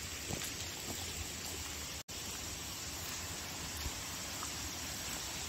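Steady outdoor background hiss with no distinct event, briefly dropping out for an instant about two seconds in.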